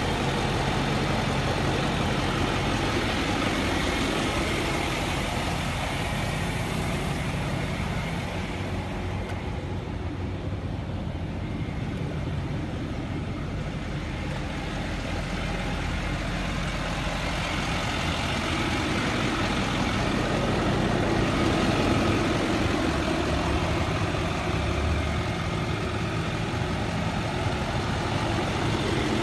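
Ford 6.4 Power Stroke V8 diesel idling steadily, a little quieter for a few seconds in the middle.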